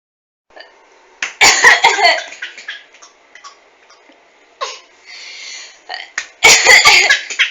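Harsh, loud coughing in two fits, one about a second in and another near the end, with a few shorter throat sounds between them.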